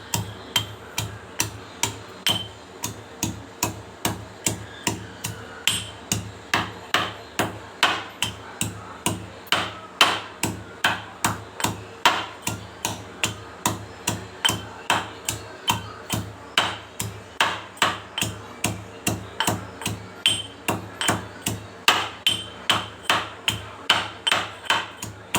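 A pestle pounding fresh ginger in a mortar, crushing it for the kadha. The sharp knocks come in a steady rhythm of about two to three strokes a second.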